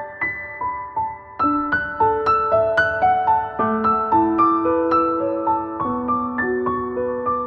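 Soft background piano music: a slow melody of single notes over held lower notes, with a brief pause about a second in.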